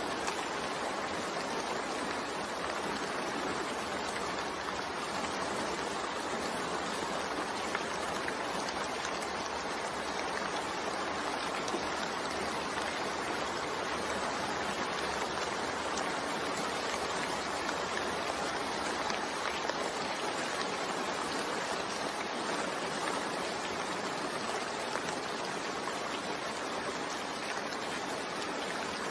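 Steady rain falling, an even hiss of water without a break.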